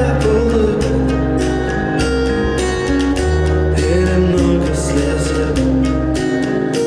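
Music playback: a song with guitar, bass and drums, and some singing.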